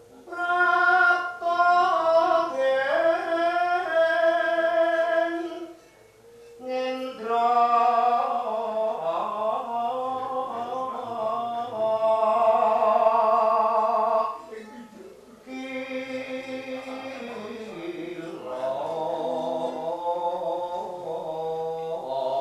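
Javanese gamelan music: a solo voice sings long, sliding, wavering phrases, breaking off twice, with softer sustained instrument tones beneath.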